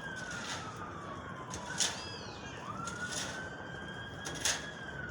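Police siren wailing in slow rising and falling sweeps, about one rise and fall every three seconds. Two short sharp cracks, about two seconds in and near the end, stand out above it.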